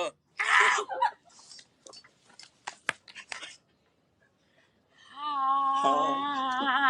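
A singer holding one long, low sung note with wide vibrato, starting about five seconds in, after a short breathy vocal sound and a few faint clicks.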